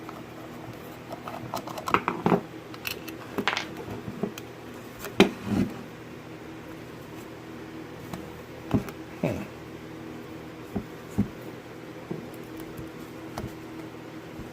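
Scattered metallic clicks, taps and knocks from a Locinox gate lock being handled and worked on with a screwdriver, in two busy spells with quieter gaps, over a faint steady hum.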